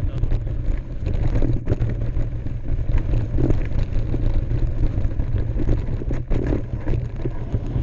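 Mountain bike riding down a dirt trail: wind rumbling on the microphone over the noise of knobby tyres rolling over dirt and small rocks, with scattered clicks and rattles from the bike.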